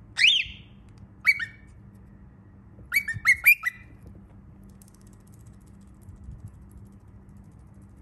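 Baby cockatiel calling: one rising call at the start, two short chirps about a second later, then a quick run of four chirps around the middle.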